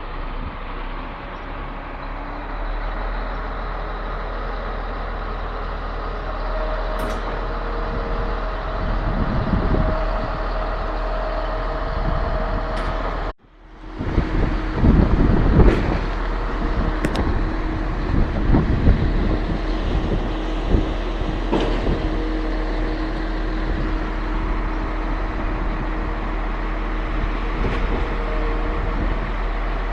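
Truck-mounted concrete pump running: a steady engine and machinery noise with occasional sharp knocks. The sound cuts out briefly about halfway through, then resumes with a few louder knocks.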